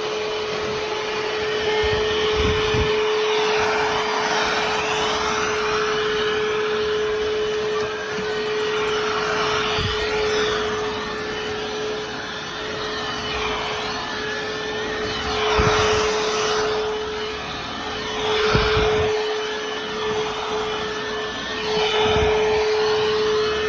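Hoover H-FREE 100 cordless stick vacuum running, its 22V battery motor giving a steady whine. The suction noise swells and fades every few seconds, with a few low knocks.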